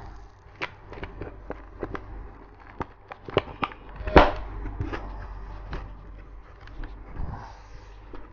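Padding being pulled out of a Bilmola full-face motorcycle helmet: a run of sharp clicks and snaps, the loudest about four seconds in, with padding rustling against the shell.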